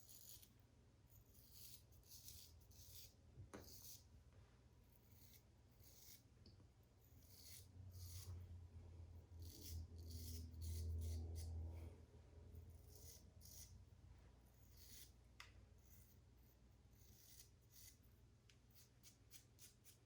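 Faint, irregular scraping strokes of a Wade & Butcher 8/8 straight razor cutting lathered stubble on a cross-grain pass. A low rumble comes in about eight seconds in and lasts roughly four seconds.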